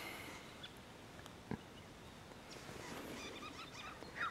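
Quiet outdoor background with faint, thin bird calls, and one soft tap about a second and a half in.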